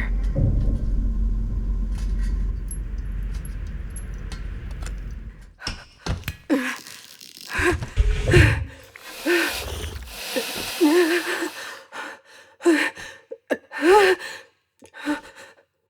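Designed sound-effects mix: a steady low rumble that stops about five seconds in, followed by a string of sharp hits and short, pitch-bending vocal sounds.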